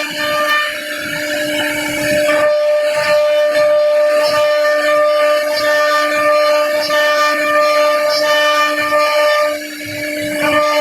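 CNC router spindle running with a steady high-pitched whine while cutting wood, with a rough cutting noise under the whine.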